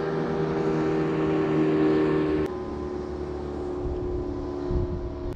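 Boat motor running at a steady pitch, cutting in abruptly and dropping to a quieter run about two and a half seconds in.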